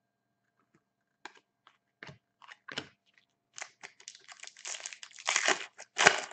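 Upper Deck Artifacts foil card pack being handled and torn open by hand, crinkling and crackling. The sounds start about a second in, come thicker from the middle on, and the loudest crackles come near the end.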